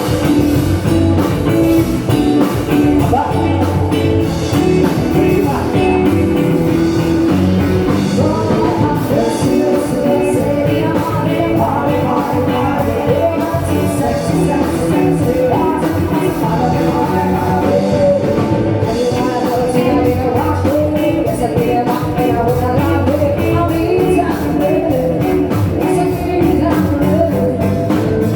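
Rock band playing a rock-and-roll jam with a drum kit keeping a steady beat.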